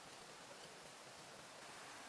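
Near silence: a faint, steady hiss of background ambience.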